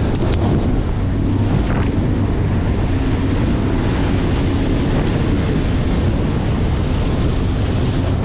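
Bass boat's outboard motor running at speed: a steady engine drone under the rush of water and spray from the wake, with heavy wind buffeting on the microphone.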